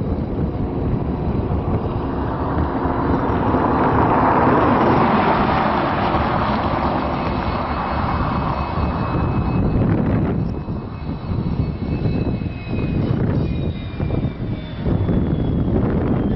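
Union Pacific EMD SD70M diesel-electric locomotive running as it rolls slowly toward and past, loudest about four to five seconds in, then easing after about ten seconds, with faint high squeals near the end.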